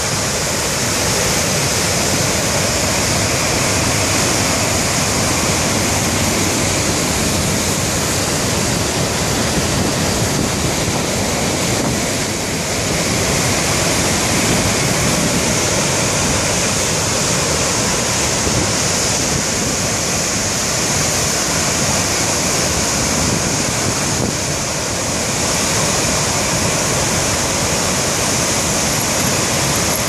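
River water pouring over a low weir into churning whitewater: a loud, steady rushing roar.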